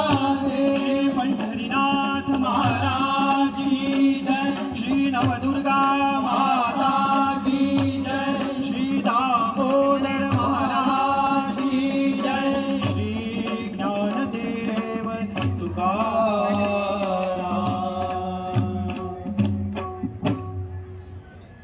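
Varkari dindi bhajan: a singing voice carries a devotional melody over a steady drone, with regular drum strokes and the clicks of small hand cymbals keeping the beat. The music fades out near the end.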